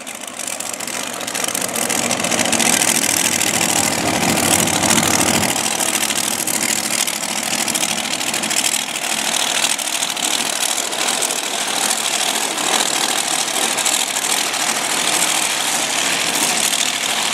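Top Dragster race car engines running loudly and steadily, with the deepest part of the sound dropping away about five seconds in.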